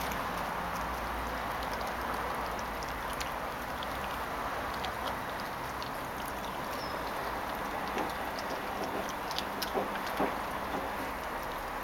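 Yellow Labrador puppy gnawing a raw chicken leg bone: small wet clicks and crunches of teeth on bone, more of them near the end, over a steady background hiss.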